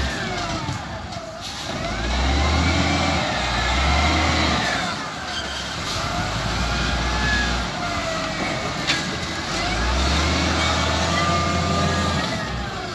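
XCMG LW300KN wheel loader's diesel engine revving up and falling back several times as the loader drives forward, raises its boom and dumps a bucket of wet soil into a dump truck. A brief sharp knock about two-thirds of the way through.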